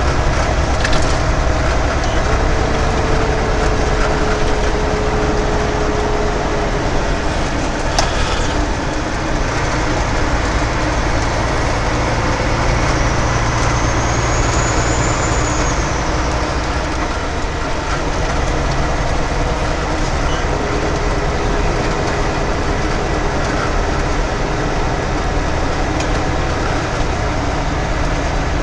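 Heavy truck cruising on a highway, heard from inside the cab: a steady low engine drone mixed with loud road and wind noise.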